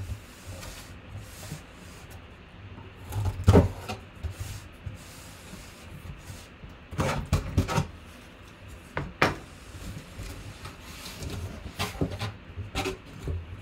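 Corrugated cardboard box being handled by hand, with fingers working at its top flaps: rubbing and scraping of cardboard and scattered knocks, the loudest about three and a half seconds in and a cluster around seven to nine seconds.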